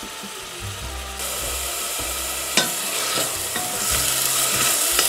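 A soffritto of chopped celery, carrot, onion and garlic sizzling in oil in a stainless steel pot while a wooden spatula stirs it. The sizzling grows louder about a second in, and there are two sharp knocks.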